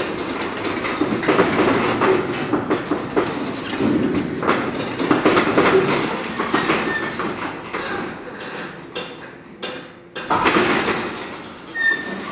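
Tank hull mock-up rocking and tilting on a motion rig, its metal body and frame rattling and clanking over a steady rumble. The clatter eases and briefly drops out about ten seconds in, then starts again.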